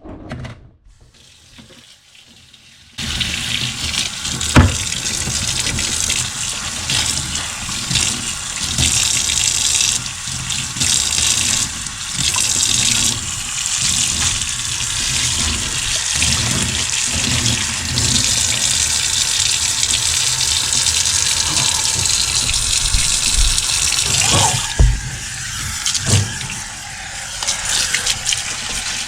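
Kitchen tap running steadily into the sink during hand dish-washing, starting about three seconds in, with a few sharp knocks of dishes.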